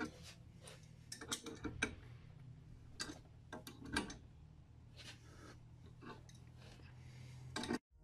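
Adjustable spanner working the nut of a crankshaft installer tool: irregular light metal clicks and ticks as the spanner is turned and repositioned on the nut, drawing the engine case halves together, over a faint low hum.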